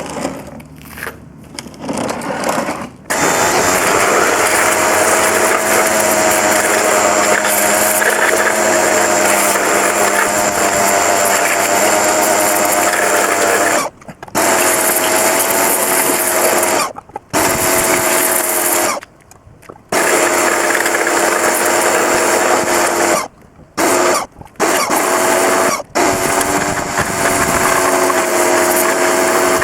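Pressure washer jet-washing an intake manifold: the pump's motor whines steadily under the hiss of the water jet. It starts about three seconds in and cuts out briefly about six times as the trigger is released and pulled again.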